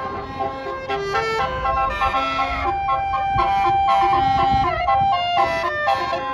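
A bus's multi-tone telolet horn playing a tune: several trumpet notes sound together and step from pitch to pitch, with one long held note in the middle. A low rumble runs underneath.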